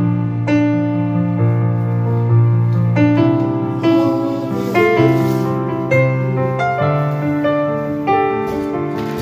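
Slow background piano music, with notes and chords struck about once a second and left to ring.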